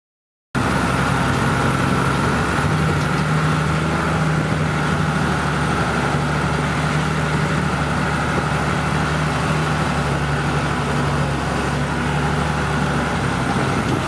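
New Holland TM150 tractor's diesel engine running steadily under load while its front plough blade pushes through snow drifts, heard from inside the cab, with a steady high-pitched whine alongside the engine note.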